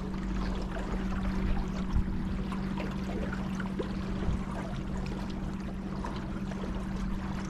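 River water trickling and splashing around a kayak, over a steady low hum.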